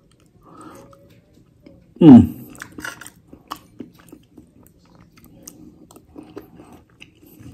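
A person chewing a spoonful of soft, shredded beef stew, with many small wet mouth clicks. A short falling hum of the voice about two seconds in is the loudest sound.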